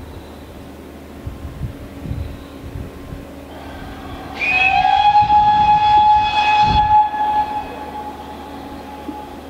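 Steam locomotive whistle from GWR 4200-class 2-8-0T No. 4277 'Hercules': one long blast of about three seconds, starting about halfway through with a slight upward slide in pitch, then holding steady.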